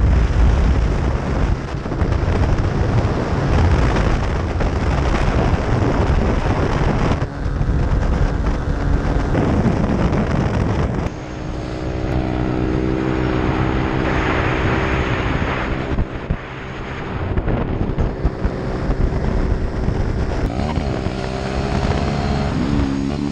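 Small single-cylinder mini motorcycle engine running while being ridden, with heavy wind rush on the microphone; from about halfway the engine note comes through clearer, its pitch shifting up and down with the throttle.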